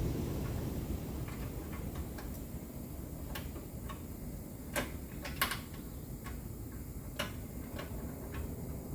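Scattered light metallic clicks and ticks, irregular and a few a second, from hand tools and fasteners while a car fender is being bolted back on. Two sharper clicks come about five seconds in, over a steady low shop hum.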